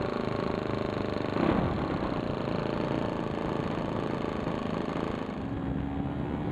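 Model airplane engine running with its propeller spinning close to the microphone, with a brief louder surge about a second and a half in and a change in tone a little after five seconds.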